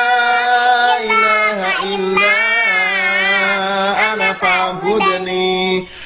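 A small girl singing an Arabic Ramadan nasheed, drawing out long, wavering held notes, with a man singing along beneath her.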